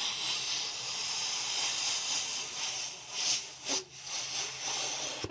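A person blowing hard into a party balloon to inflate it: a steady rushing hiss of breath, with a short break a little past three seconds in before the blowing resumes.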